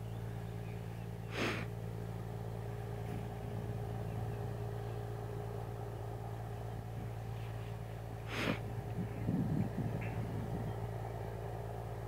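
Fishing boat's diesel engine running with a steady low drone as the boat motors past. Two brief hissing bursts cut in, one about a second and a half in and one near the middle.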